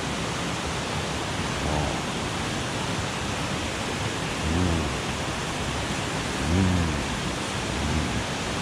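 Steady rushing of a mountain stream, with a man giving a few short low hums while he eats, about two, four and a half, six and a half and eight seconds in.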